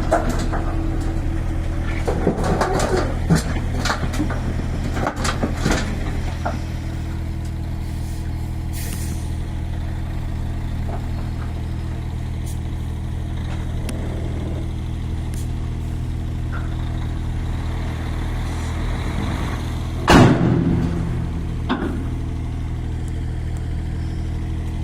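Diesel engine of a small earthmoving machine running steadily, with scattered knocks and scrapes in the first few seconds and one loud short clatter about twenty seconds in.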